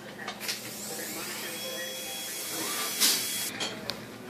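Dental equipment hissing steadily for about three seconds, with a louder burst near the end before it cuts off.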